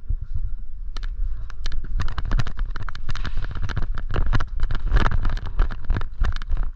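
Airsoft guns firing in rapid, irregular sharp cracks, thickening from about two seconds in, over a steady low rumble of handling and movement against the camera microphone.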